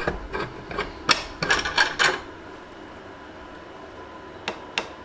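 Metal scraping and clicking against the hot steel file in the heat-treat oven as a magnet is touched to it, testing whether it has reached critical temperature and lost its magnetism. A quick run of scrapes and clicks in the first two seconds, then two light clicks near the end.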